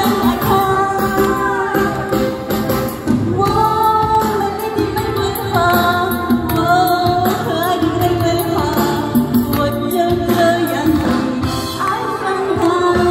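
A woman singing a song with vibrato over instrumental accompaniment with a steady beat.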